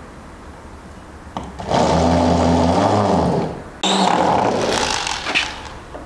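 Corded electric drill boring into the wooden underside of a table, run in two bursts of about two seconds and a second and a half; the motor winds down at the end of the first burst and starts again abruptly.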